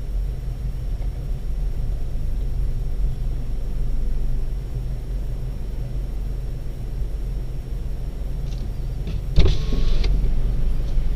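Steady low rumble of a car heard from inside the cabin while it idles and creeps in traffic. About nine seconds in there is a sudden knock followed by a brief hiss.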